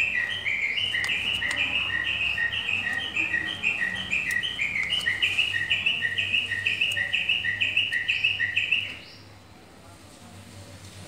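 A bird chirping steadily, short notes alternating between a higher and a lower pitch about twice a second, until it stops about nine seconds in. A few faint clicks underneath.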